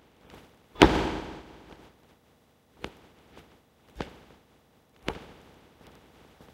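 Hard-soled shoes striking a stone-tiled floor in drill: one heavy stamp about a second in, the loudest, ringing on in a long echo, then three sharp footfalls about a second apart as he marches off.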